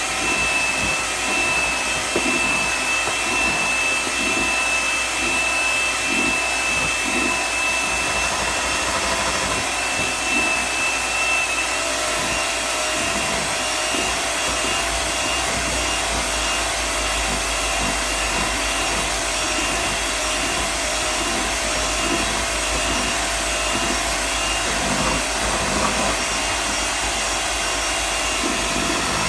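Electric hand mixer running steadily, its beaters beating cream cheese in a bowl. A high motor whine sits over the noise and fades a little about twelve seconds in.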